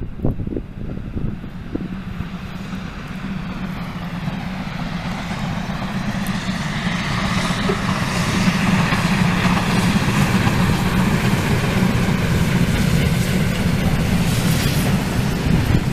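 Two steam locomotives, both 2-10-0 freight engines of classes 50 and 52, double-heading a passenger train and working under steam. The train's running noise draws nearer and grows louder over the first several seconds, then holds steady as it passes. Wind buffets the microphone at the start.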